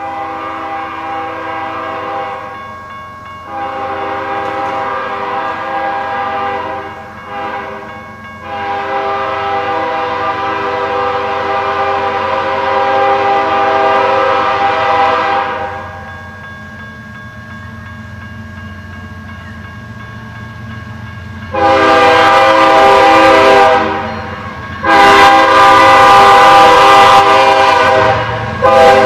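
BNSF diesel freight locomotive horn blowing the grade-crossing signal: two long blasts, a short one, then a long one held for about seven seconds. After a pause it sounds two more, louder blasts over the rumble of the approaching train.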